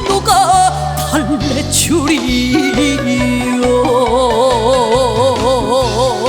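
Trot song with band accompaniment. From about four seconds in, a long note is held with wide, even vibrato.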